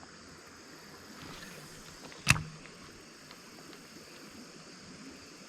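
Steady, faint high drone of insects with one sharp click about two seconds in.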